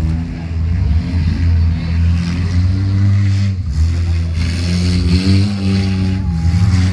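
Demolition derby cars' engines running loud and revving, their pitch rising and falling.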